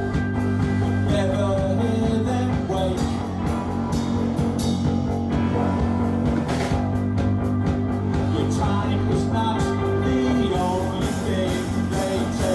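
Rock music with electric guitar, bass and drums, with a melody line over the top.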